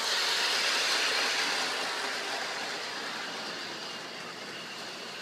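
Bachmann Big Haulers toy train running along its track on the shelf: a steady whirring rattle of motor and wheels. It is loudest in the first couple of seconds, then fades as the train moves away.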